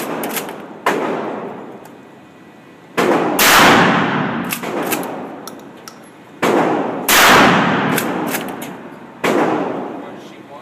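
Benelli 12-gauge pistol-grip shotgun firing several shots a couple of seconds apart. Each sharp blast is followed by a long echo that fades away.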